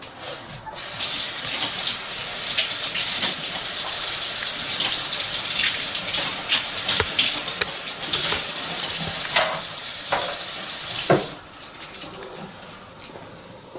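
Kitchen tap running into a sink, with water splashing, turned off about eleven seconds in. A few small knocks come near the end.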